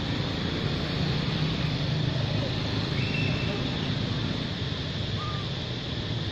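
Steady outdoor background rumble and hiss, with two brief high chirps about three and five seconds in.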